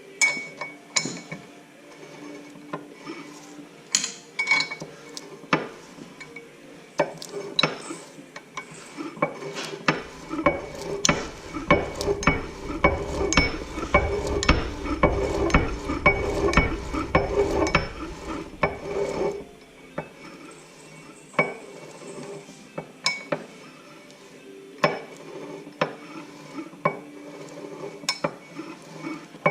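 Metal clinks and clicks of tools on a Ford 9-inch differential's ring and pinion, with a louder stretch of steady clicking and grinding in the middle as the gears are turned with a wrench to roll a contact pattern in the marking compound.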